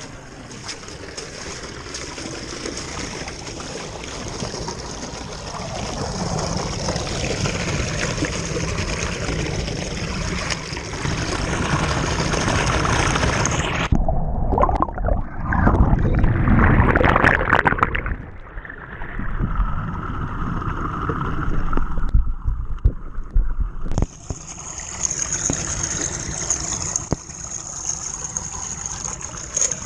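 Water draining down a clogged flat-roof drain as it is being unblocked, with a louder surge of water about halfway through.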